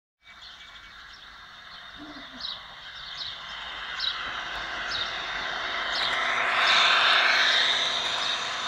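OO gauge model diesel locomotive with a DCC sound decoder running past with its coaches, its engine sound growing louder to a peak about seven seconds in, with a regular ticking running through it.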